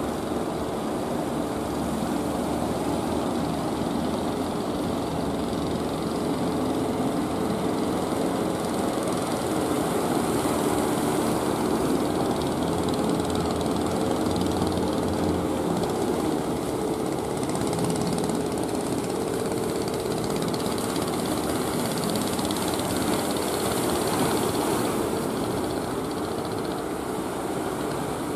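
Engines of wooden fishing boats running steadily, a pitched drone over a continuous hiss.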